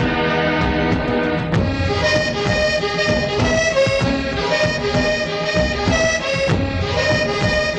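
Instrumental background music: a melody of held notes over a steady accompaniment.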